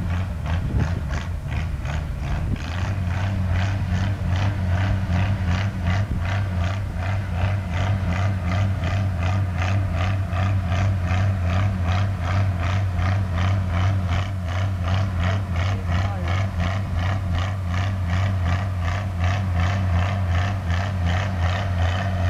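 Antique tractor engine working hard under load as it pulls a weight sled, running steadily with an even pulsing beat of a few times a second.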